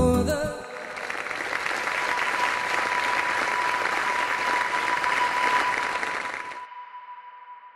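A concert audience applauding after a song's last notes die away, the clapping cutting off abruptly near the end. A steady tone sounds under the applause from about a second in and carries on after it.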